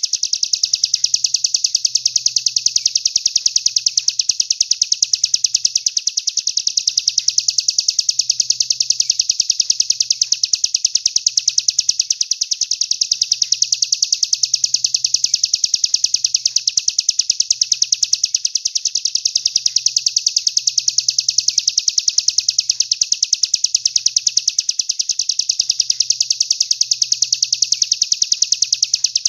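Songbird 'tembakan' masteran call: a fast, very even string of high chirps repeated without a break, used as a training recording for contest songbirds.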